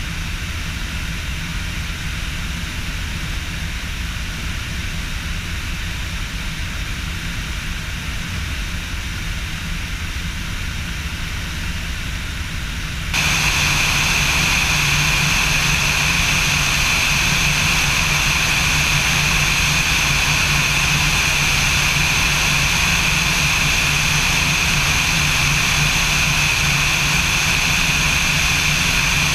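Light aircraft's piston engine and propeller droning steadily in cruise flight, a constant low hum with a high whine over it. The whole sound jumps suddenly louder about thirteen seconds in, then holds steady.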